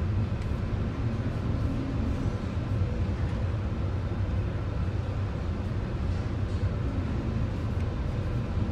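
Steady low rumble and rush of wind and heavy sea on board a laden container ship in a storm, with a few faint steady tones above it.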